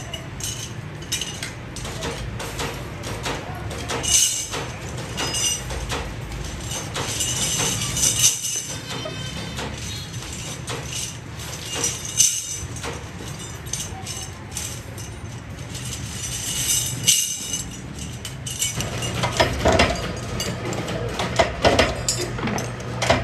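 Stainless steel pieces clinking and tapping against each other and against tools, a steady run of short metallic clicks and ringing strikes.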